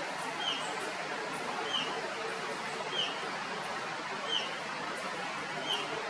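Small flycatcher calling: a short, high call repeated steadily, five times, about one every second and a quarter, over a steady background hiss.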